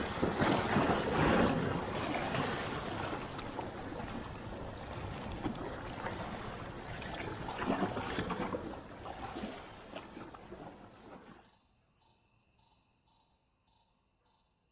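Insects chirping in a steady, high, evenly pulsing trill, typical of crickets. For the first part there is a rushing noise under it, which stops about 11 seconds in and leaves the chirping on its own.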